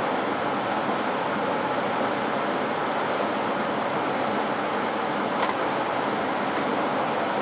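Steady rushing hum of a biosafety cabinet's blower fan and airflow, with two light clicks a little past halfway as a cage is handled on the steel work surface.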